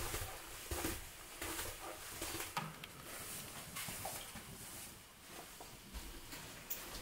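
Soft footsteps and clothing rustle of someone walking slowly along a corridor, with irregular small taps and scuffs.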